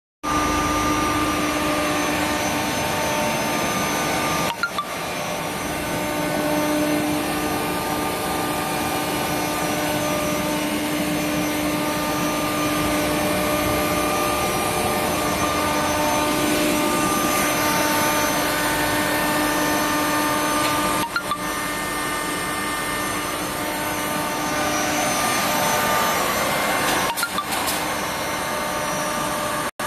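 Variable-speed rotary screw air compressor, its electric motor driving the screw airend, running steadily: a continuous mechanical noise with several steady tones held over it, broken very briefly a few times.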